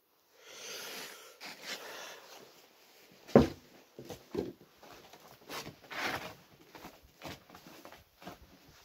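Footsteps crunching in snow and the rustle of a padded winter suit as a person walks past and away, with one sharp thump about three and a half seconds in.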